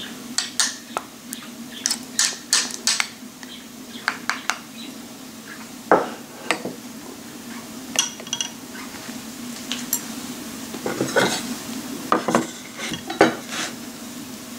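A metal spoon stirring crushed garlic into honey in a small ceramic bowl, clinking against the bowl's sides, then scattered clinks and knocks as the bowl and dishes are moved and set down by a wooden cutting board. A steady low hum sits underneath.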